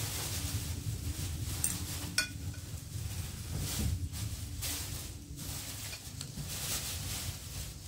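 Spoons and forks clinking lightly against glass plates while people eat, the clearest clink ringing briefly about two seconds in, over a steady low hum.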